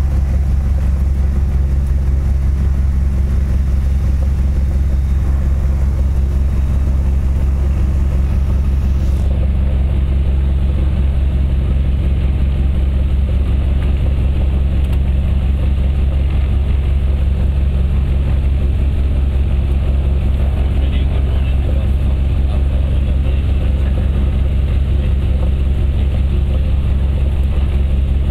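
Cessna 172's piston engine and propeller idling steadily at low power, heard from inside the cabin as a loud, even drone.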